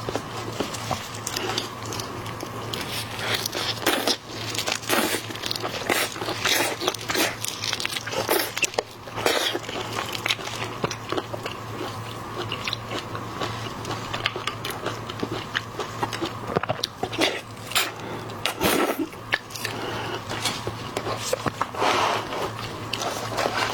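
Close-miked eating of seafood: repeated biting and crunchy, wet chewing with many sharp clicks and smacks, over a steady low hum.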